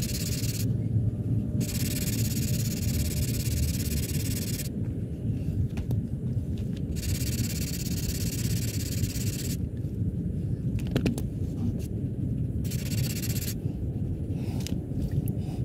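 Work on a car's front bumper: an even hissing, rubbing noise in runs of one to three seconds, about four times, with pauses between, over a steady low rumble.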